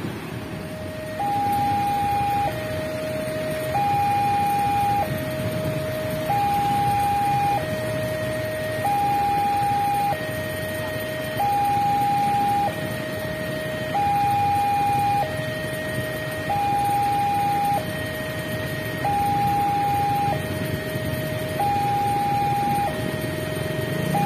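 Railway level-crossing warning alarm sounding an alternating high-low two-tone signal, each tone held a little over a second, starting about a second in. It warns that a train is approaching as the crossing barriers come down. Under it is the low hum of road traffic.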